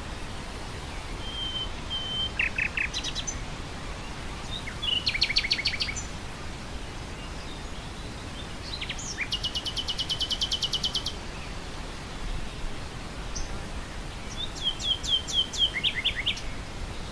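Common nightingale singing in short, varied phrases: a plain held whistle, brief groups of repeated notes, and one fast run of repeated notes lasting about two seconds midway. Under it, wind through grass makes a steady low hiss.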